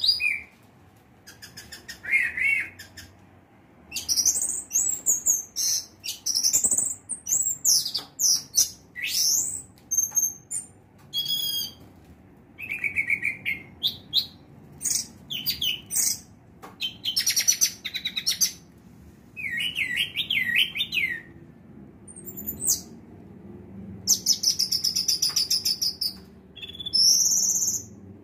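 Orange-headed thrush singing a long, varied song of short phrases: clear whistles that slide up and down, fast rattling trills and chattering notes, with short pauses between phrases.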